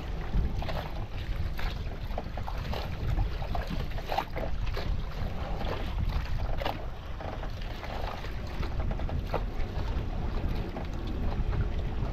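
Wind buffeting the microphone on a fishing boat at sea, a steady low rumble, with water splashing and slapping against the hull now and then.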